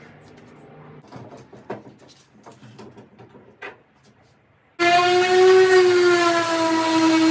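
A few light knocks and clicks from bar clamps and a wooden edging strip being handled and set. About five seconds in, a random orbit sander comes in abruptly, running with a loud, steady whine as it sands a plywood cabinet top.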